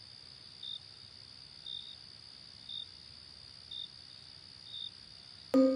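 Crickets chirping at night, a steady high trill with a short chirp about once a second. Music comes in just before the end.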